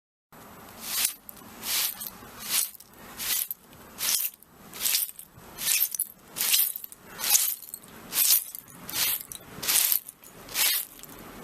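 Broom sweeping over broken glass shards, with glass crunching and tinkling under the bristles. The strokes are rhythmic and even, a little over one a second, about thirteen in all.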